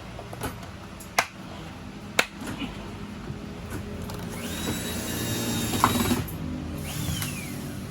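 A few sharp clicks and knocks, then a small electric motor runs with a steady high whine for about two seconds. A short whine falling in pitch follows near the end.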